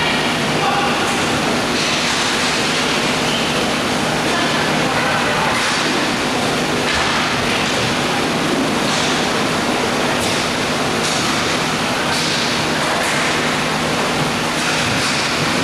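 Steady, noisy ambience of an inline roller hockey game: a constant rumble and hiss, broken by a scattering of short sharp clicks and faint distant voices.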